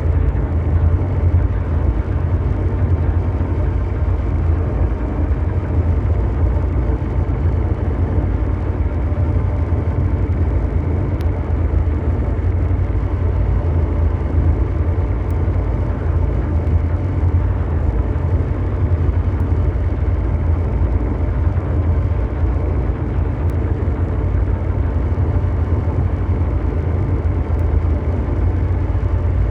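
Steady, unbroken mechanical drone noise: a deep bass rumble like brown noise, with a fainter hum of steady tones above it and no rhythm or change.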